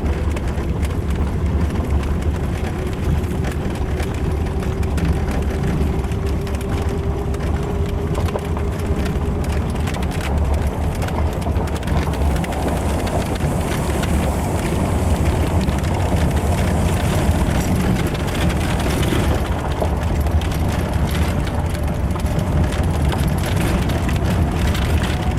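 Steady, loud, low rumble of a moving vehicle, with a faint tone slowly rising in pitch in the first half; it cuts off abruptly at the end.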